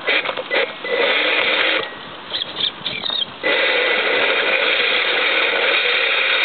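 Homemade RC rock crawler's drivetrain, a Novak 45-turn brushed electric motor through an aluminium gearbox, whining under throttle. It runs in a short spurt about a second in, with clicks and scrapes after it, then runs steadily from about halfway through.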